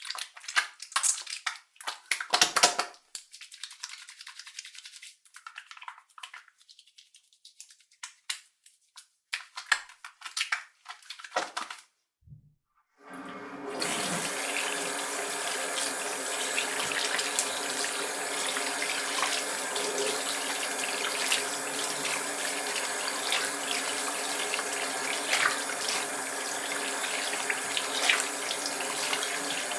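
Soapy hands rubbing together in irregular wet, sliding strokes for about twelve seconds. After a short pause a water tap comes on and runs steadily into a sink, as for rinsing.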